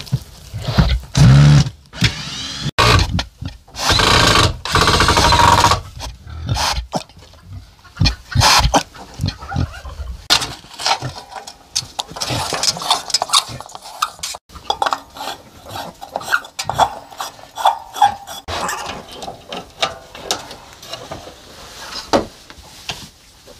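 Newborn piglets squealing and their sow grunting over the first few seconds, followed by repeated clicks and knocks as an aluminium heat-lamp reflector is handled.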